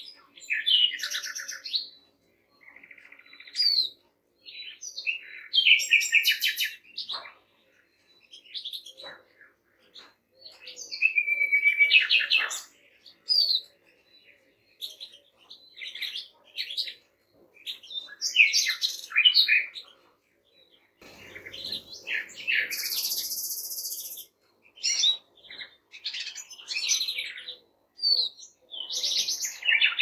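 A mixed chorus of goldfinches, greenfinches and siskins singing, a steady run of rapid twittering and chirping phrases. About two-thirds of the way through comes one harsh buzzing note lasting about two seconds.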